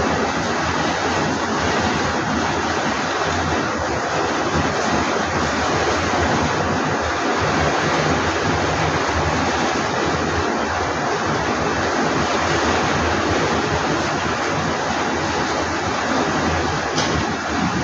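Heavy rain pouring down in a windstorm: a loud, steady rush of water.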